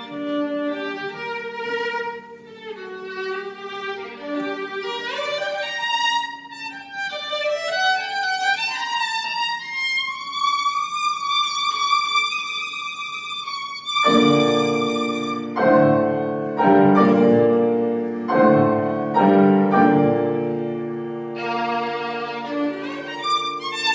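Violin playing a melody with piano accompaniment. The violin climbs to a long held high note, then about two-thirds of the way through louder, fuller chords come in beneath it.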